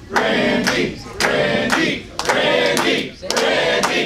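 Background music: a song with sung group vocals over a beat of handclaps or sharp percussion.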